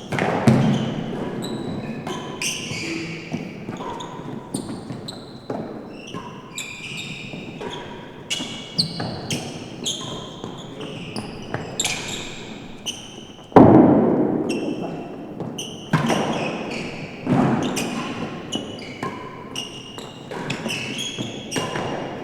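A real tennis rally: repeated sharp knocks of racket on ball and ball off the court walls, echoing in the enclosed court, with many short high squeaks of shoes on the floor. The loudest knock comes about two thirds of the way through.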